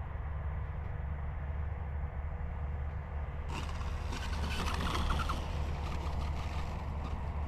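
Electric RC aerobatic plane's brushless motor and propeller, an E-flite Extra 330SC, buzzing in flight and passing closer about halfway through, swelling and then fading, over a steady low rumble of wind on the microphone.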